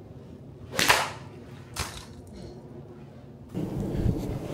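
A golf iron swung and striking a golf ball off a hitting mat with one sharp smack about a second in, followed about a second later by a second, lighter impact. Louder background noise sets in near the end.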